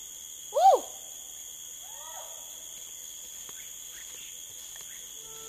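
Rainforest insects buzzing steadily at a high pitch, with one loud arching animal call about half a second in and a few fainter arching calls near two seconds. Faint crackles of steps on leaf litter follow.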